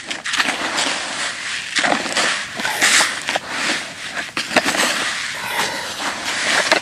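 Hands mixing damp, crumbly soil with dry groundbait: a rough, grainy rustling and crunching with many small clicks, rising and falling as the handfuls are turned over.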